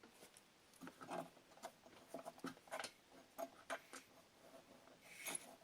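Faint, irregular clicks and light knocks of tools and small metal parts being handled while a Stihl BR 600 backpack blower's engine is taken apart.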